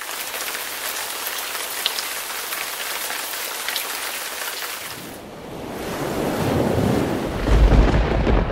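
Intro sound effects: a steady hiss for about five seconds, then a deep rumble that swells into heavy booms near the end.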